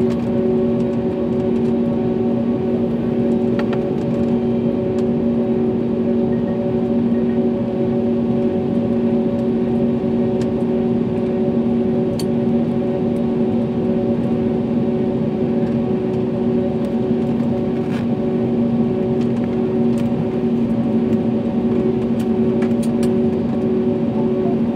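Steady cabin drone of an Airbus A320 taxiing after landing, with its engines at low power. It is a constant hum of several steady tones over a rushing noise, with a few faint clicks.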